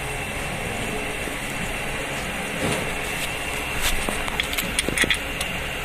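A few light metallic clicks and taps, bunched in the second half, as gearbox bell-housing bolts are fitted by hand from below, over a steady workshop hum.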